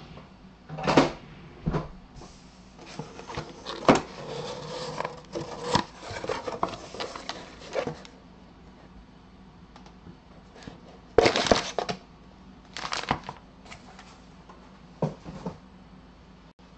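A cardboard box being opened and foil-wrapped trading-card packs being lifted out and set down. It is an irregular run of scrapes, rustles and knocks, with the sharpest knocks about a second in and around eleven seconds in.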